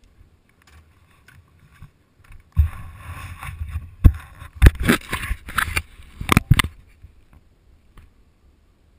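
Handling noise close to a helmet-mounted camera: rustling and scraping with a cluster of sharp knocks and clicks starting a few seconds in, then quiet again. No dirt bike engine is running.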